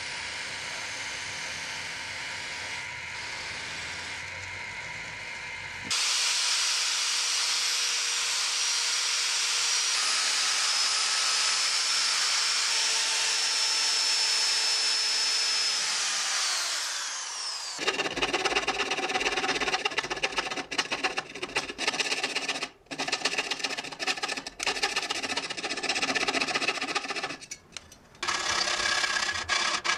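A bench-motor buffing wheel runs steadily at first. A drill press then cuts in abruptly, running with a high steady whine as it bores into a metal plate, and winds down about 16 seconds in. After that, a hand jeweller's saw cuts through the plate in uneven back-and-forth rasping strokes with short pauses.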